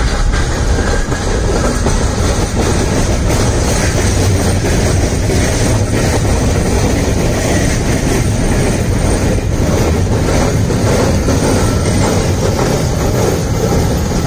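Damaged freight wagons, hopper and gondola cars, rolling past close by with a very loud, continuous rattling and banging of many knocks over the steady rumble of wheels on rail; the heavy noise is the sign of the wagons' damage.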